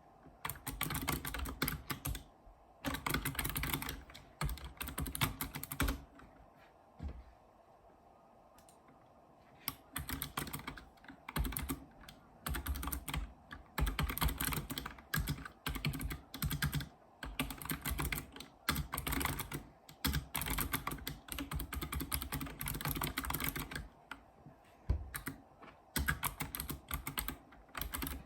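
Typing on a Razer Ornata Chroma mecha-membrane keyboard: fast runs of key clicks in bursts, with a pause of a few seconds about a quarter of the way in.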